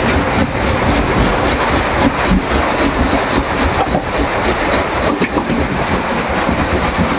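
Heavy rain pouring down in a steady rush, with irregular scraping strokes from a vegetable being grated on a metal box grater.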